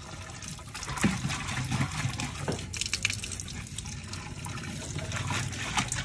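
Water from a pipe pouring into the mouth of a clay matka, splashing and sloshing as a hand scrubs around inside the pot.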